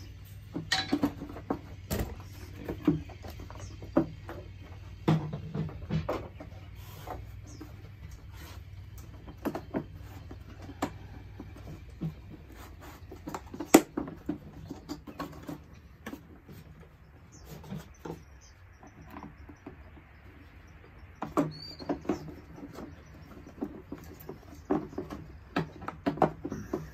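Plastic motor housing halves of an air compressor being pried and worked apart, first with a screwdriver and then by hand. Irregular clicks, creaks and scrapes come in clusters, with one sharp crack about fourteen seconds in, as the stubborn housing resists.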